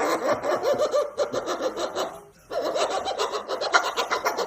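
People laughing hard in two long bouts, with a short break for breath a little past two seconds in.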